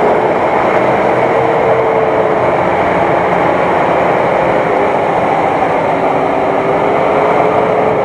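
Nissan Patrol SUV's engine running hard under load as it pushes slowly through deep mud, with tyres churning the mud; a loud, steady noise with a faint held whine through it.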